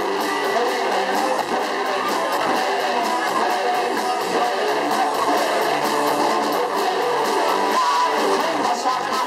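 Live band playing, led by strummed guitar, with a steady drum beat.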